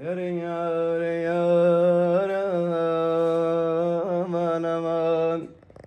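A man's voice holding one long sung note, with a couple of small wavering turns in pitch, that stops about five and a half seconds in.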